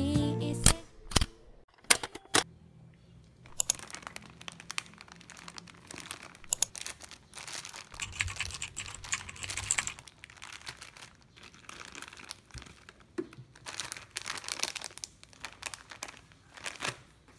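Plastic ingredient packaging crinkling and rustling in irregular bursts as bags are handled on a table, with a few sharp knocks in the first couple of seconds.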